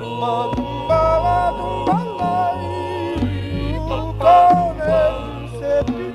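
Music: a voice singing long, sliding notes over acoustic guitar and sustained chords.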